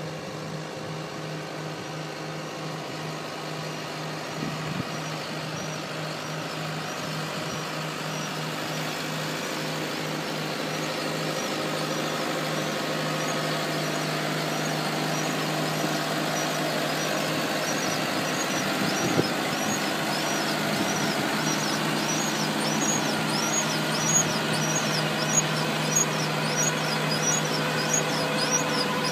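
Tractor diesel engine running steadily, slowly growing louder. From about two-thirds of the way in, a fast high-pitched squeak repeats several times a second over the engine.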